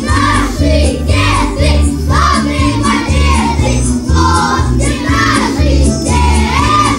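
Song with young children singing together over a steady bass beat.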